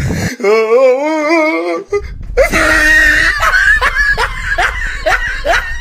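A dubbed-over person's voice: a wavering, wailing held cry for about a second and a half, then a quick run of high-pitched giggling laughter.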